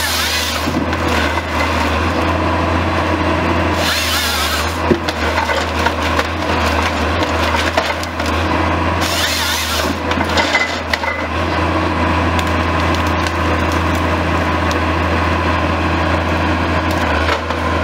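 Timberjack 1070 wheeled harvester at work: its diesel engine runs steadily under hydraulic load while the harvester head handles and cross-cuts a log. The head's chain saw cuts through the wood in short bursts at the start, about four seconds in and about nine seconds in, with wood cracking and splintering as it is fed.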